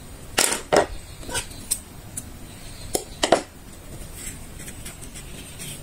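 Several short clicks and taps from handling crochet work, the loudest in the first second and two more about three seconds in, as the crochet hook is put down on the tabletop.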